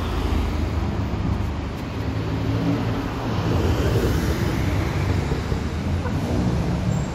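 Sports cars driving past one after another at low speed, engines running with a low rumble that swells as each goes by, loudest about four seconds in. The cars are a Mercedes SL roadster, then a Porsche 911 Targa, then a Mini.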